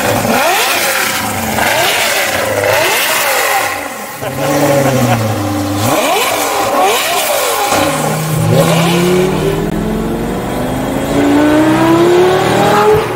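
A 2004 Lamborghini Gallardo's 5.0-litre V10 with a straight-pipe exhaust is revved in a series of quick blips, the pitch jumping up and falling back. About eight seconds in, the revs climb steadily for several seconds, then fall near the end.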